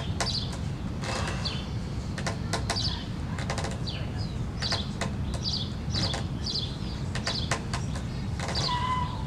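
Small birds chirping again and again in short high calls, some falling in pitch, over a steady low outdoor rumble.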